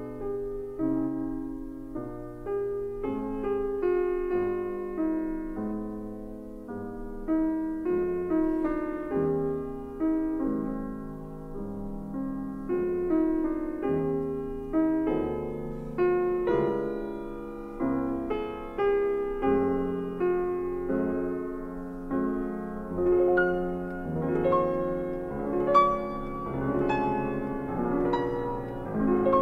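Background piano music, a steady run of struck notes with no voice.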